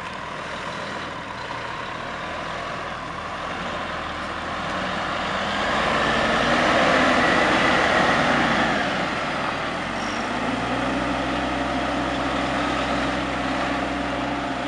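DAF XF105 truck's diesel engine running as the tractor unit and trailer pull slowly past, loudest midway and then settling into a steady low hum.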